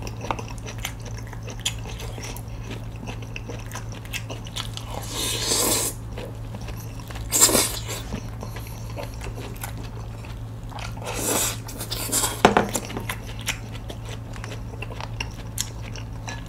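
Close-miked chewing and biting of food, with a few louder, noisier bites about five, seven and a half, and eleven to twelve seconds in, over a steady low hum.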